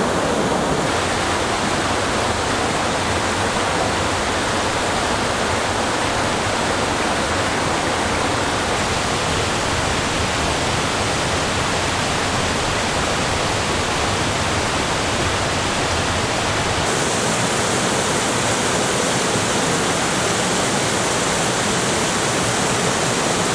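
Waterfall: a steady, dense rush of falling water. The tone shifts abruptly about a second in, and again twice more, as one waterfall recording gives way to the next.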